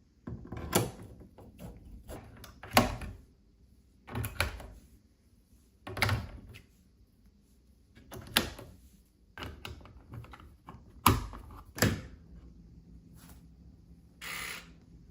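Knocks and clicks of an electronic fingerprint door lock's parts being handled and fitted to a door, about ten separate hits spaced a second or so apart, with a short buzz near the end.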